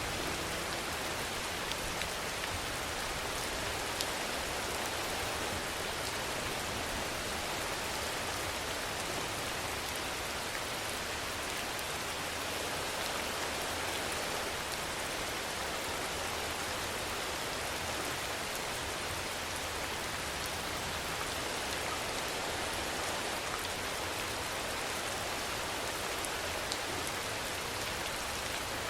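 Steady rainfall: an even hiss of rain on surfaces, with a few faint individual drop ticks now and then.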